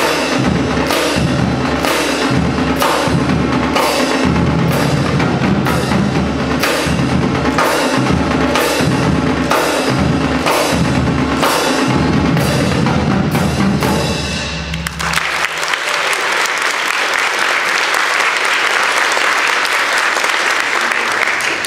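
Marching drumline of tenor drums, snare drum and tuned bass drums playing a loud cadence with a steady beat; the drumming stops about fifteen seconds in and is followed by audience applause.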